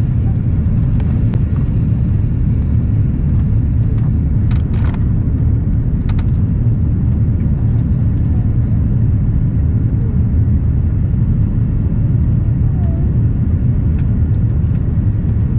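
Airbus airliner cabin noise: a steady, loud, low rumble of engines and airflow heard from inside the cabin. A few short clicks or rattles come about four to six seconds in.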